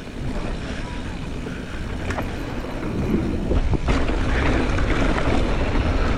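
Mountain bike descending a trail: wind rushing over the microphone over a steady low rumble from the tyres and bike, with two sharp knocks from the bike about two and four seconds in. It gets louder in the second half.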